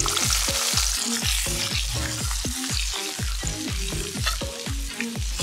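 Chopped shallots tipped into a pan of hot oil over a wood fire, the oil sizzling hardest in the first second or so as they land and then frying steadily. Background music with a steady beat plays underneath.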